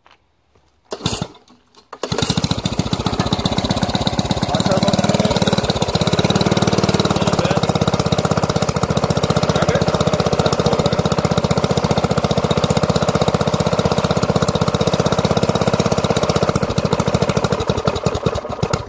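Tecumseh 3.5 hp, 148 cc single-cylinder push-mower engine with a turbocharger in its exhaust: a short pull on the starter about a second in, then the engine catches and runs loud and steady with a fast, even firing beat, and cuts off suddenly near the end.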